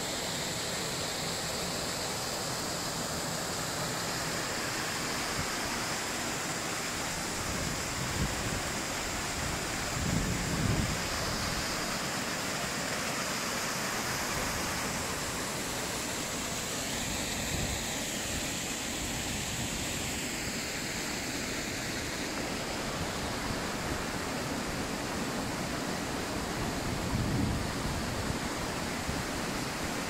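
Waterfall pouring into a rocky pool: a steady, even rush of falling water, with a few brief low bumps about ten seconds in and again near the end.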